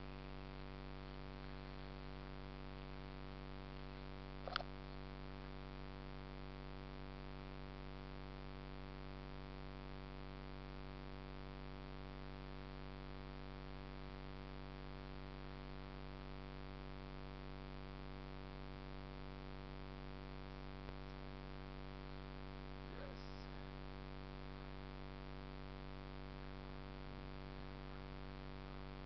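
Steady electrical hum with a stack of even overtones, with one sharp click about four and a half seconds in.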